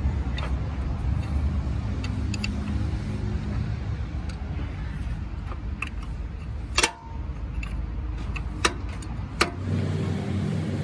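Metal hand tools and fittings clinking against a tractor's gearbox housing: a few scattered sharp clicks, the loudest about seven seconds in, over a steady low rumble of machinery running.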